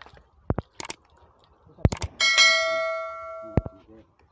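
Metal parts knocking together in a few sharp clinks, then one piece is struck and rings out like a bell, fading over about a second and a half, followed by one more knock.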